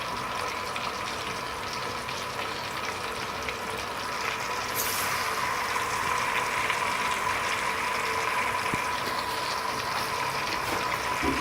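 Pieces of marinated chicken frying in hot oil in a pan: a steady sizzle that grows a little louder about four seconds in.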